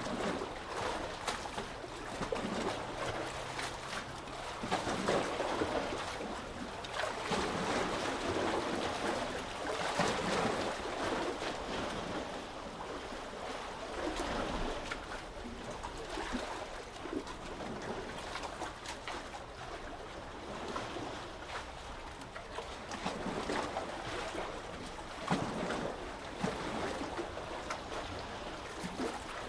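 Small sea waves lapping and splashing, with irregular swells every few seconds and a constant fizz of small splashes between them.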